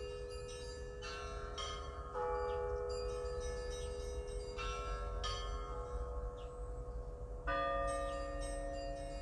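Russian Orthodox church bells rung by a bell ringer: several bells of different pitch are struck in turn, their tones ringing on and overlapping. Heavier strikes come about two seconds in and again near the end, the second bringing in a lower bell.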